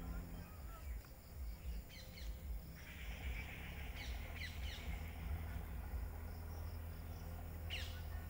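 Birds calling in short high chirps from the trees: a few about two seconds in, a quick cluster around four seconds and one sweeping call near the end, over a faint high insect chirring and a steady low rumble.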